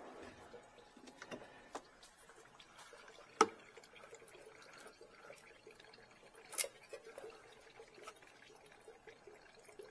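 Engine oil draining out of the sump into a drain pan, a faint steady trickle. Two sharp clicks come about three seconds apart as a wrench works on the oil filter.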